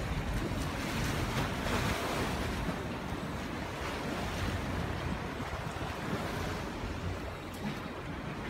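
Small waves breaking and washing up a sandy beach in a steady rush, with wind buffeting the microphone.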